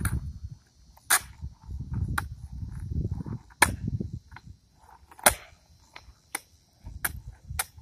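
Skateboard wheels rolling on concrete with a low rumble, broken by about eight sharp clacks of the board's tail and deck striking the ground as ollies are popped and landed. The loudest clacks come about a second in and about five seconds in.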